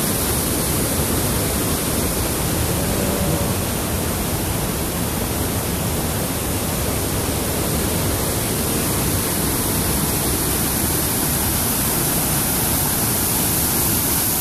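Sol Duc Falls, a large waterfall, rushing as a loud, steady, even wash of water noise.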